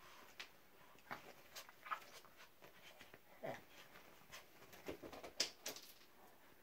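Small puppy playing with a toy on a bed: scattered soft taps and rustles of paws and toy on the quilt, with a brief falling whimper about three and a half seconds in. Sharper taps follow near the end, the loudest as the puppy lands on the wooden floor.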